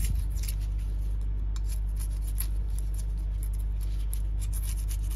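Old paper gasket being scraped and peeled off a seawater pump's metal wear plate: short, irregular scratchy scrapes and ticks, over a steady low hum.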